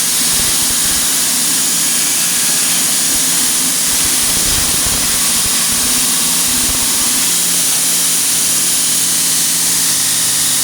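Grinder running steadily against the sides of a hardened steel sword blade, grinding them clean after heat treatment, with a loud hiss and a steady motor hum underneath.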